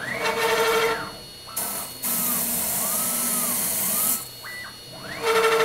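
PS1 CNC router cutting pink foam: motor whines that glide up and down in pitch as the head moves, over the hiss of the spindle and cut. There are louder buzzing spells about a quarter second in and again near the end, with quieter gaps between them.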